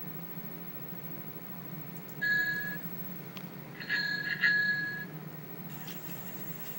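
A clear, high bell-like ringing tone sounds twice, a short ring about two seconds in and a longer, slightly wavering one near the middle, over a steady low hum.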